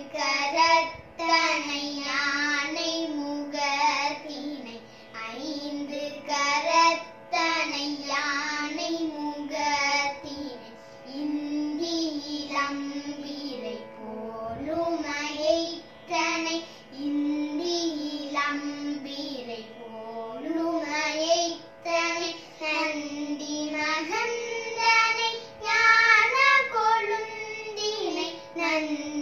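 Two young girls singing a Tamil devotional bhajan to Ganesha (Vinayagar) in phrases, over a steady drone.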